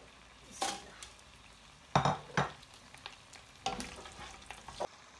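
A spoon stirring whole spices frying in oil in a cooking pot, with a faint sizzle and five short clanks and scrapes against the pot, the loudest about two seconds in.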